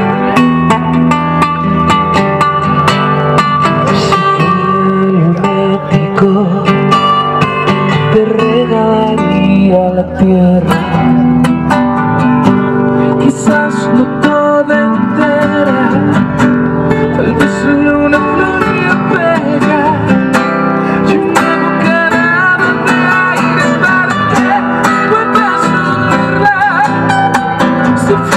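Acoustic guitar music, strummed, playing steadily throughout.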